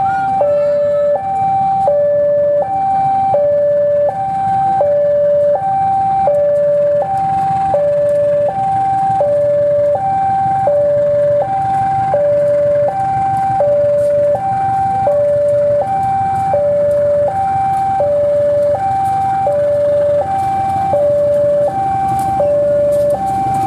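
Two-tone electronic railway level-crossing alarm sounding continuously, a higher and a lower tone alternating evenly, each about half a second long. Under it runs the low rumble of a CC 203 diesel-electric locomotive hauling its train.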